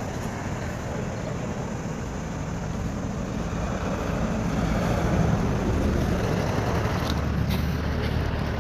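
A motor vehicle's engine running as a low rumble that grows louder about halfway through, with a few faint clicks near the end.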